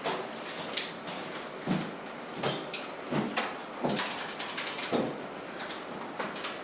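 Scattered knocks and clicks, roughly one a second, some with a dull thud, over a steady room background.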